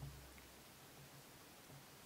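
Near silence: faint room tone, with the last of the acoustic guitar background music fading out at the very start.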